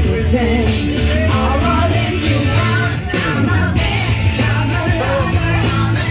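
Karaoke: singing into microphones over a loud backing track with a steady bass beat, played through the boat's speakers.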